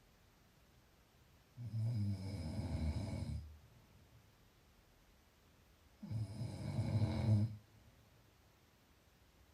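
Snoring: two long, low, fluttering snores about four seconds apart, each lasting roughly a second and a half to two seconds, with quiet between them.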